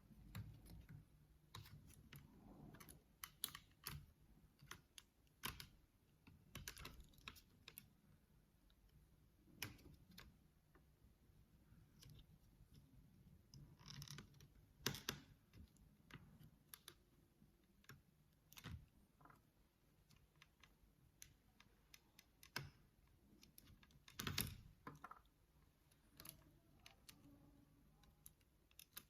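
Faint, irregular clicks and clacks of a mechanical keyboard's parts being handled as it is taken apart, with a few sharper knocks.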